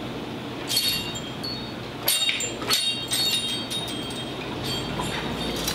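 Metal wind chimes hung above a shop door ringing: clusters of high, clear tones, struck again and again from about a second in. A steady low hum of the shop lies underneath.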